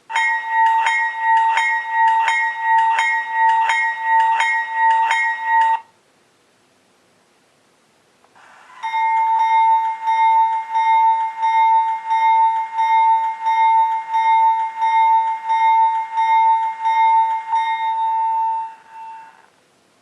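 A recorded GE locomotive steel bell played back through a small model-locomotive speaker. It rings about twice a second for six seconds and stops. After a two-second pause, a second GE steel bell recording rings a little faster for about ten seconds and fades out near the end.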